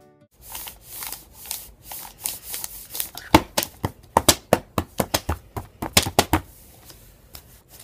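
Hands tapping and slapping out an attempted beat, a quick, uneven run of taps and thuds that gets louder in the middle and stops about six and a half seconds in.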